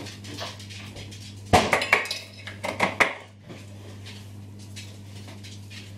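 Spatula scraping and knocking against a ceramic mixing bowl and metal baking tins as cookie dough is scooped out. A cluster of sharp clatters and knocks comes in the middle, over a low steady hum.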